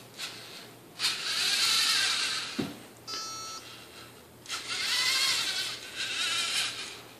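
LEGO Mindstorms NXT servo motors whirring in several stretches as the balancing robot drives back and forth. A single short electronic beep from the NXT brick comes about three seconds in, the signal that the robot has detected an obstacle.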